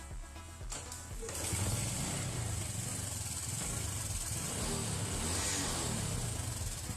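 Honda Biz 125's single-cylinder four-stroke engine running with a strong mechanical noise from the top end, louder from about a second in; the mechanic traces the noise to a faulty cam chain tensioner.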